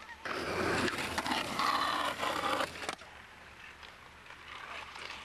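Skateboard wheels rolling on concrete: a loud rushing roll from just after the start to about three seconds in, then it drops to a quieter stretch.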